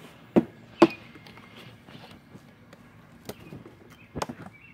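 A few short, sharp knocks and clicks: two close together in the first second, the louder just under a second in, then two more around three and four seconds in.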